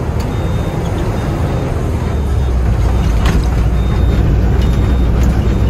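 Truck's diesel engine running with road noise, heard from inside the cab while driving, getting a little louder about four seconds in.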